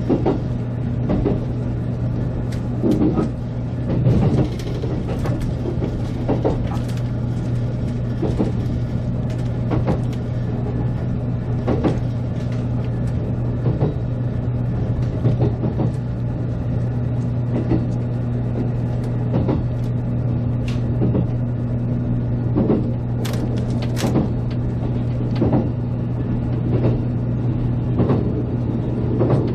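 Running noise of a JR Kyushu 783 series electric limited-express train heard from on board: a steady low hum with irregular clacks and knocks from the wheels on the track.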